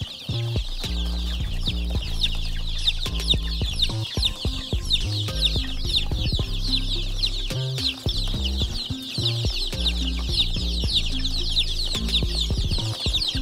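A brood of chicks peeping constantly: many high, falling cheeps overlapping without pause. Background music with a low bass line runs underneath.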